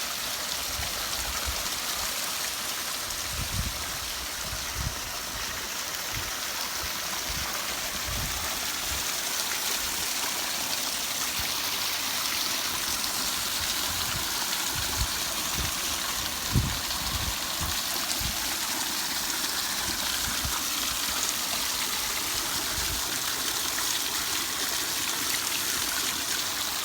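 Water from a newly built pondless waterfall splashing steadily down over rocks, with a few soft low bumps.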